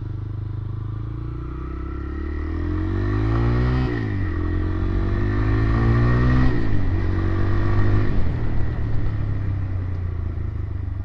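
TVS Raider 125's single-cylinder engine idling, then revved up and let back down twice, settling back to idle near the end. It has a thin sound with some noise, which the owner puts down to the worn rocker still due for replacement after a cam chain change.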